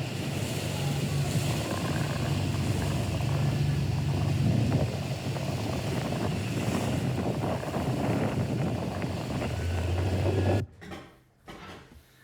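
Motorboat engine running steadily with wind and water noise, then cutting off abruptly about ten and a half seconds in.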